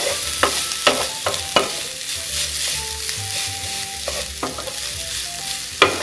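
Scrambled egg and shredded carrot sizzling in oil in a hot non-stick frying pan, a steady high hiss, while a wooden spatula stirs them. The spatula knocks sharply against the pan a few times, mostly in the first two seconds and once near the end.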